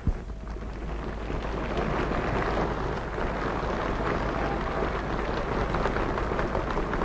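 Crowd applauding: a dense patter of clapping that swells about a second in and holds steady, opening with a short thump.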